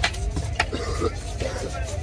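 A knife blade scraping along the scales of a large fish, with a few sharp scraping strokes over a steady rumble of market noise and faint voices.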